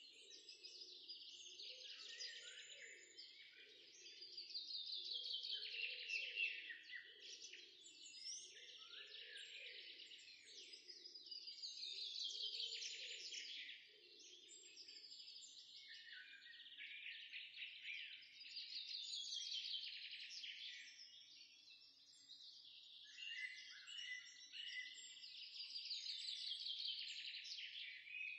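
Bird-like chirping: descending trills of quick high notes that come round again about every seven seconds, over a soft low pulse that fades out about halfway.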